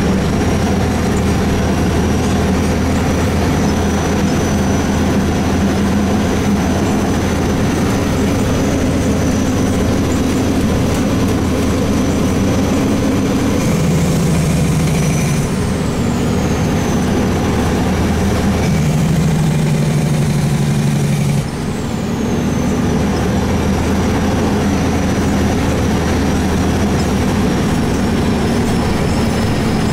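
Heavy truck's diesel engine running steadily, heard from inside the cab while driving on a gravel road. The engine note steps to a different pitch about halfway through and again a little later, with a short drop in loudness, and a thin high whine above it slides down in pitch twice.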